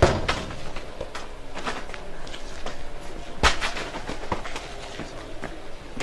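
A football kicked against a metal gate: a few sharp bangs, the loudest about three and a half seconds in, with softer knocks of the ball between.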